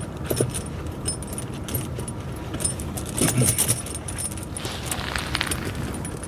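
Steel links of a pewag doppelspur tractor tire chain clinking and jangling as the chain is worked over the tire tread, with a louder flurry of clinks about three seconds in.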